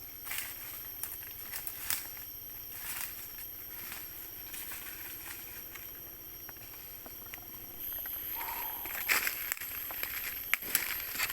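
Footsteps and scattered crackling in forest leaf litter, over a steady high-pitched insect drone.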